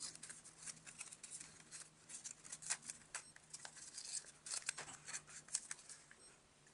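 Faint rustling and crackling of origami paper being folded and creased by hand, in many short irregular crackles that stop about six seconds in.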